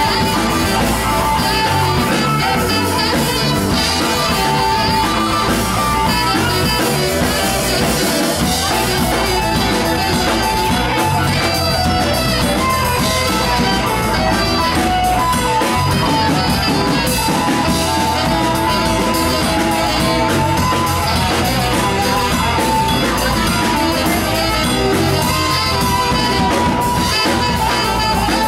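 A live band playing a Latin rock instrumental passage, with saxophone, electric guitars, keyboard and drums, at a steady loud level and no singing.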